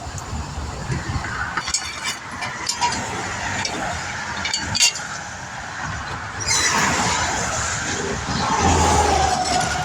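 Interstate traffic rushing past close by, with wind on the microphone. A few light metallic clinks and a sharp knock come in the first half, then a vehicle passes loudly from about two-thirds of the way in, its tyre whine falling in pitch as it goes by.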